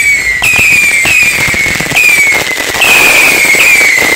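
Fireworks whistling: a string of whistles, each starting sharply and sliding slightly down in pitch, a new one about every second, over the steady crackling hiss of a ground fountain spraying sparks.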